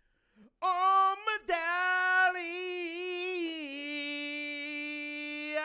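A man singing solo in a high register with no accompaniment heard: after about half a second of silence he sings a phrase that settles into a long held note, then starts a new phrase near the end.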